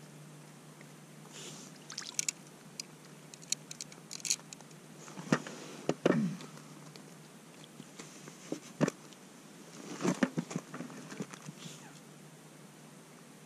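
Scattered light clicks and a few louder knocks and slaps as a smelt is jigged up through a hole in the ice and handled. The loudest come about halfway through and again around ten seconds in.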